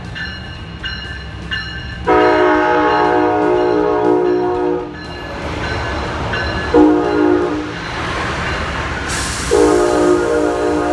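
Siemens Charger SC44 diesel-electric locomotive sounding its air horn as it passes close by: a long blast about two seconds in, a shorter one near seven seconds, and another starting near the end. Under the horn is a low, steady rumble of engine and wheels.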